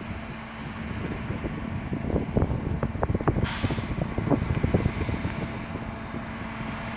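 MAN TGA truck's V8 diesel engine running steadily as it moves slowly along. Irregular low thumps come from about two to five seconds in, with a short hiss about halfway through.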